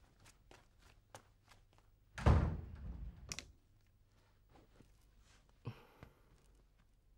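A wooden room door is pushed shut with a dull thud about two seconds in, followed a second later by a sharp click. Soft taps and small knocks come before and after it.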